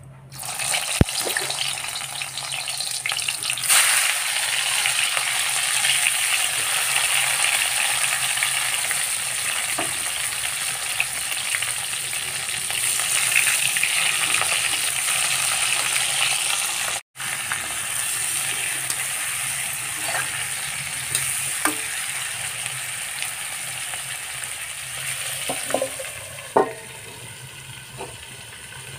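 Stuffed bitter gourds (karela) sizzling as they fry in hot oil in an iron kadai, with the odd scrape and clatter of turning them. Near the end a few metallic knocks come as a steel lid goes on, and the sizzle turns quieter and muffled.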